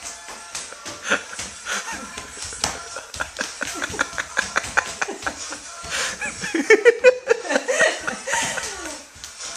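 Young children laughing and squealing, loudest about seven seconds in, over a run of quick taps and knocks.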